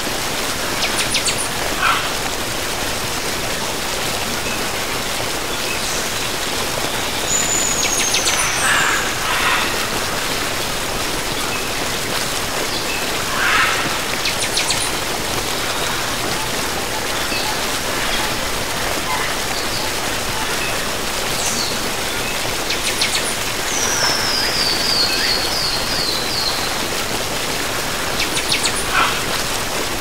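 Steady rush of a waterfall, with birds calling now and then over it, including a quick run of descending notes about three quarters of the way through.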